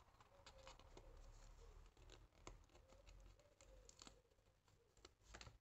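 Faint handling of a small paper envelope: light paper rustles and scattered soft clicks as it is turned and pressed between the fingers.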